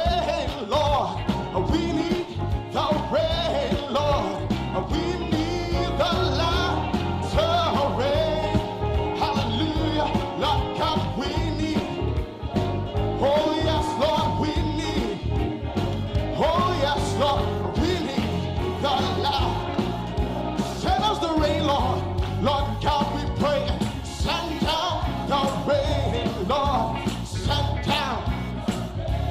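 Gospel worship music: a band playing with singing.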